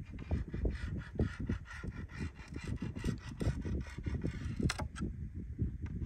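Pencil scratching and rubbing over a sheet on a wooden table as lines are drawn along a ruler, in quick short strokes that stop near the end. A gusty low rumble of wind on the microphone runs underneath.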